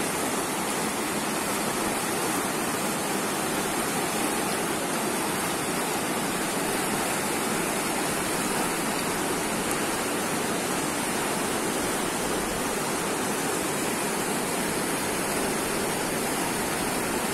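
Fast, muddy river flowing over rapids: a steady rush of water with no change throughout.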